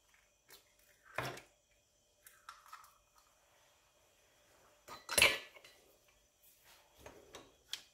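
An egg cracked against a Thermomix's stainless steel mixing bowl and dropped in: a light crack about a second in, fainter handling a moment later, then a louder sharp knock a little after five seconds.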